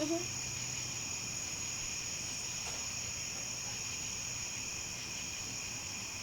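Steady chorus of crickets and other insects: a continuous high trilling in several pitches at once, unchanging throughout.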